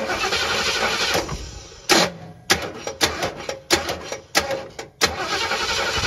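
Engine turned over by its starter from a remote starter button, not firing. First a crank of about a second, then five short bumps of the starter, then a steady crank from about five seconds in.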